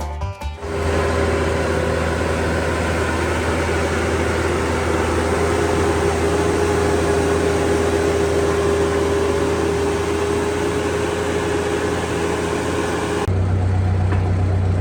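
Heavy machinery running hard and steadily, a low engine drone under loud, even noise with a constant whine. Near the end the loud noise cuts off sharply, leaving only the low engine running.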